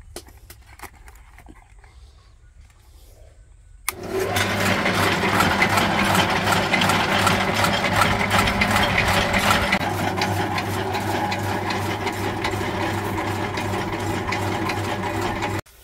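Chaff cutter starting up about four seconds in and running steadily, chopping leafy branches into bedding for a cattle shed with a fast, even clatter over a steady hum; it cuts off suddenly near the end.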